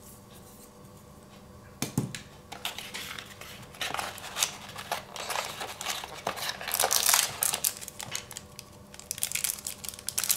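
Hands handling cardboard packaging inserts and crinkling a small clear plastic bag of spare pen refills: a string of rustles and light taps that starts about two seconds in.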